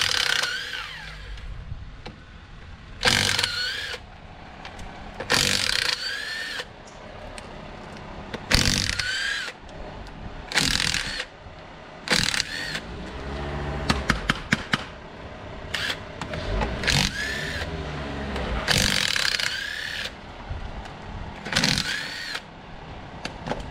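A handheld power tool run in short bursts of about a second, roughly ten times, its motor whine rising and falling with each burst. A quick run of sharp clicks comes about fourteen seconds in.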